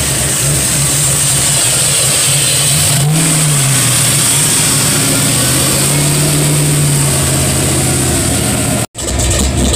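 Truck engine running at idle, revved up and back down about three seconds in and again, more slowly, around six seconds, with a steady high hiss over it. The sound cuts out for an instant near the end.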